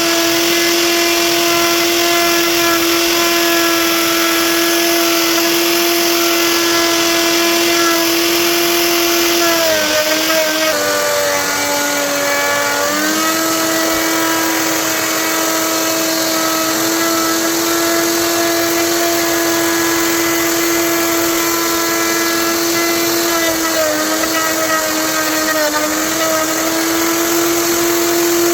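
Electric power tool motor running loud and steady at high speed. Its pitch drops for a few seconds about ten seconds in, and briefly again near the end, as the motor slows under load while cutting into wood.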